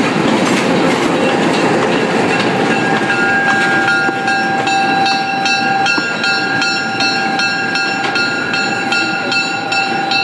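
ALCO FPA-4 diesel locomotive running as it moves off along the track. A dense rumble at first gives way to a steady high whine, with a regular clicking about three times a second from about four seconds in.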